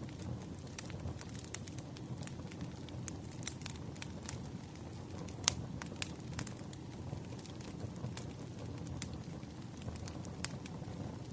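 Campfire burning with a steady low rustle and irregular sharp crackles and pops, one louder pop about halfway through.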